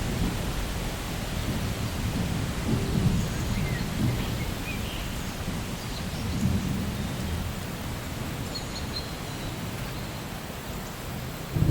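Steady rain with low rolls of thunder that swell a few seconds in and again around the middle.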